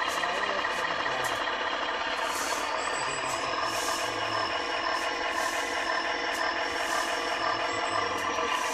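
Zimo sound decoder in an Aristocraft G-scale GE U25B model locomotive playing a diesel engine sound through its speaker: a steady drone with a high whine that rises in pitch between about two and four seconds in as the engine sound revs up, while the train is still moving slowly, which the owner thinks is too fast a rev-up for the speed.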